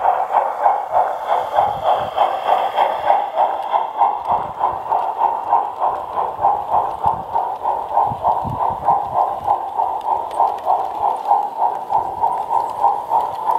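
Stainz model steam locomotive chuffing at an even beat of about four a second as it pulls its coaches, on a test run after overhaul.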